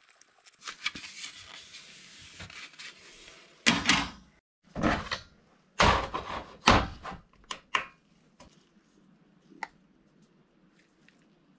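A few seconds of cloth rubbing, then a run of about six sharp knocks and clunks as a small metal digital scale and a paper cup are set down and handled on a perforated steel workbench.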